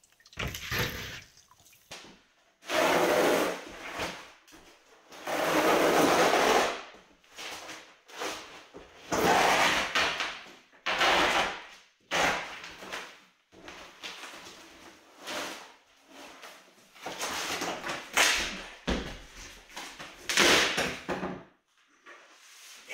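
Old floor coverings being torn up and hauled away: large sheets of board and rolled linoleum sliding, scraping and being dropped, in about a dozen separate noisy bursts of a second or two each.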